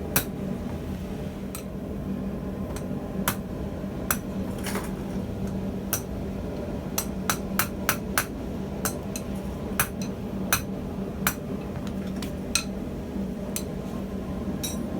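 Hammer striking steel on an anvil while forging a blacksmith tong: sharp, irregular blows, about one to two a second, each with a brief metallic ring, over a steady low hum.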